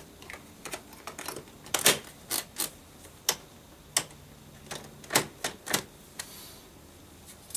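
Sharp plastic clicks and taps at irregular intervals, about a dozen, from handling and fitting the interior door panel trim of a Toyota Camry.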